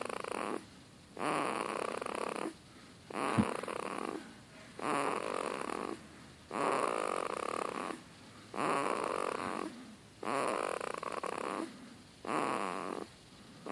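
Snoring in a steady rhythm: a rasping snore about every two seconds, seven or so in all, each lasting a little over a second. A single sharp click about three and a half seconds in.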